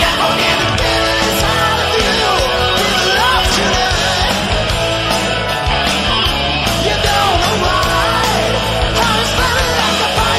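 Hard rock band playing at full volume: an electric lead guitar plays bending, wavering notes over drums, bass and keyboards.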